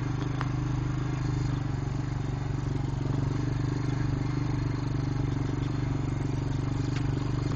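ATV engine running steadily at low speed.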